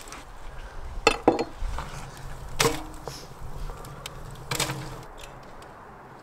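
Several sharp, hard knocks: two close together about a second in, another near three seconds and one more around four and a half seconds.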